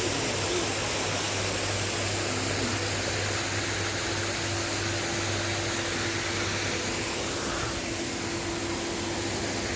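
Waterfall: a steady, even rush of falling water, with a faint steady hum underneath from about three seconds in.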